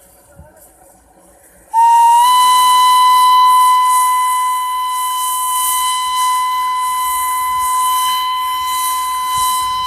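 Darjeeling Himalayan Railway toy train's whistle, starting suddenly about two seconds in as one long steady blast that rises slightly in pitch at first, with a pulsing hiss above it.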